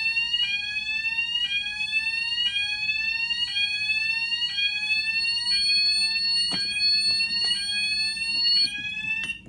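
Fire alarm sounders on a conventional fire alarm system going off in alarm: a rising sweeping tone repeats about once a second over a steady high-pitched tone. A second, higher tone joins about five seconds in, and all of it cuts off abruptly near the end.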